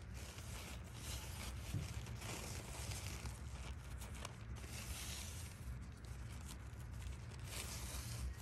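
Irregular rustling and crinkling of handled material over a steady low rumble.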